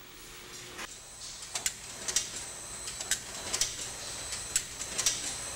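Automatic food-forming machine running and cutting dough wrappers: a steady mechanical hum with sharp clicks and clacks about twice a second.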